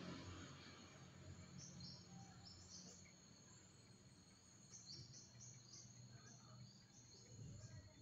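Faint insect chirping, with crickets trilling in a steady high-pitched band broken by choppy pulses, over a faint low hum.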